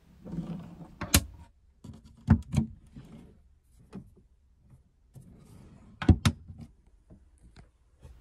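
Top-hinged overhead cabinet flap doors being opened and shut by hand, with latch clicks and sharp knocks as they close: one knock about a second in, a pair about two and a half seconds in, and another pair about six seconds in, with soft handling noises between.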